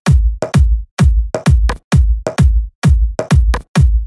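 Electronic car-mix music with heavy, booming bass kicks that fall in pitch, about two a second, with short breaks of silence between them.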